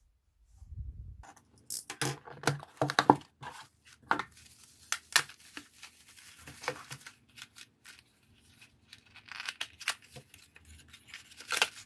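Bubble wrap being pulled off and unwrapped from a long gift box by hand: irregular plastic crinkling, crackling and tearing, starting about a second in and loudest two to three seconds in.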